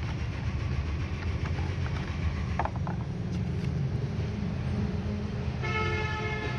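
Clear plastic blister packaging being handled, a few light clicks over a steady low rumble. A sustained pitched tone sounds near the end.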